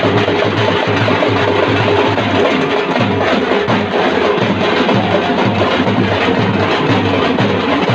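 A group of dappu frame drums (thappetlu) beaten with sticks in ensemble: loud, fast, densely packed drumming that keeps going without a break.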